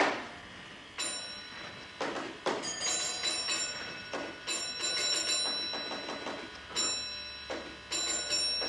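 Signal box telephone bell ringing in a series of sharp strokes at uneven intervals, each ringing on. It is a train driver calling the signalman from a lineside telephone.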